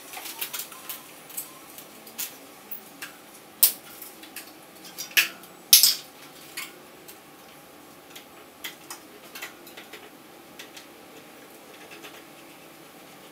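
Metallic clinks, clanks and rattles of a fat-tire bicycle wheel being handled and fitted into the front fork, busiest in the first half with the loudest clanks about four to six seconds in.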